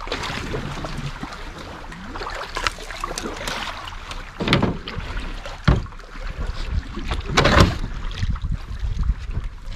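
Canoe paddles dipping and pulling through river water, with a steady wash of water and a few sudden louder strokes about halfway through and near the end.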